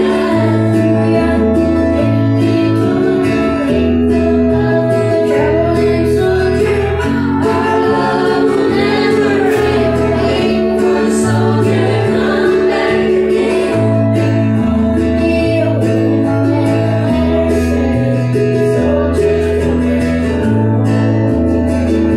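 Karaoke backing track of a slow country ballad, guitar over a steady bass line, playing loudly through a PA, with female singing into microphones over it at times, most plainly in the middle.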